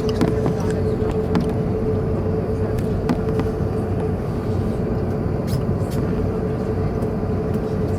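Cabin noise aboard a British Airways Airbus A380 with Rolls-Royce Trent 900 engines: a steady engine rumble with a constant hum, and a few faint clicks.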